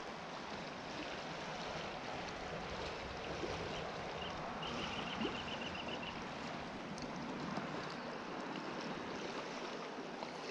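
River current flowing steadily past: an even rush of moving water.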